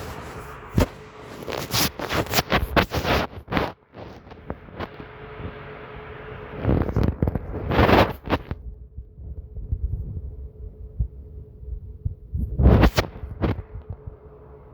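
Microphone held against a belly: bursts of scraping and rubbing handling noise, dense in the first few seconds and again around the middle and near the end. Low, irregular stomach rumbling and a faint steady hum fill the quieter stretches between them.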